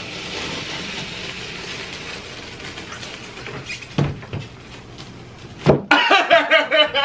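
Sticky paper tear-strip being peeled off the seal of a cardboard computer box, a steady ripping rasp, with two sharp snaps about four and nearly six seconds in. Near the end a man lets out a loud, wavering yell.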